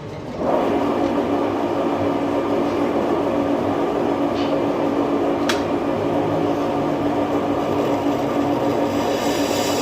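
Metal lathe running under a cut on a cast iron part: a steady hum over a loud rushing noise that comes in suddenly about half a second in.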